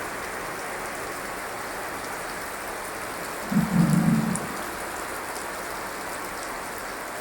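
Heavy rain falling steadily, with a brief low rumble lasting about a second halfway through.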